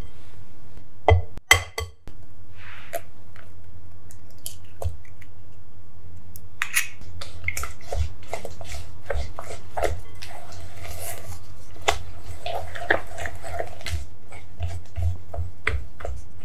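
Silicone spatula stirring and scraping a thick creamed-butter cake mixture in a glass bowl: soft squelches with many small scrapes and taps against the glass, over a steady low hum.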